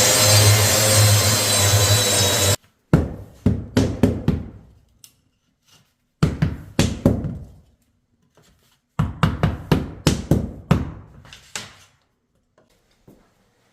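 A power saw cutting into wooden floorboards, which stops abruptly about two and a half seconds in. Then come three bursts of quick, sharp hammer blows on the wood flooring as it is broken up for removal.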